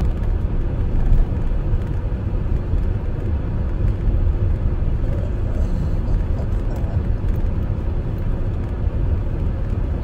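Blizzard wind buffeting the microphone: a loud, low, gusting rumble that rises and falls in level.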